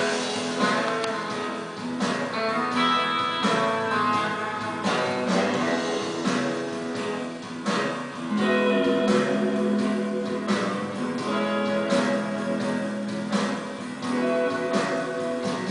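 Background music: guitar playing, with plucked and strummed notes.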